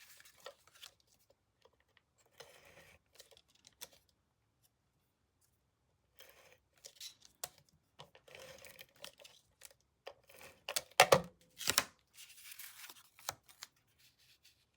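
Cardstock being handled and stuck together, with intermittent paper scraping and rustling and a few sharp taps about three-quarters of the way through.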